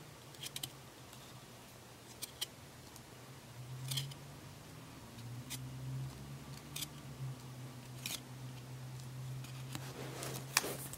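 Trading cards being flipped one at a time off a hand-held stack: a short, light snap or slide of card stock roughly every second or so, with a quicker run of snaps near the end.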